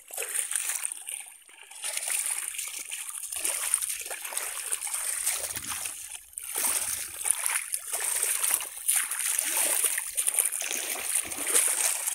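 Shallow water splashing and sloshing as a bamboo polo fish trap is pushed down and worked into it, coming and going unevenly with brief lulls.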